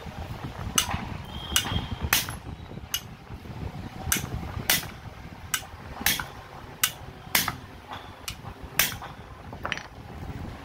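A club hammer striking the steel tool-holder barrel of a 5 kg demolition hammer, about a dozen sharp metal-on-metal blows at an irregular pace of one to two a second, to free its seized bit-lock parts.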